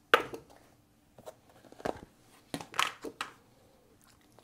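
Pie filling being spooned onto a round of pie dough: a few short knocks and scrapes of the utensil, several of them bunched together about two to three seconds in.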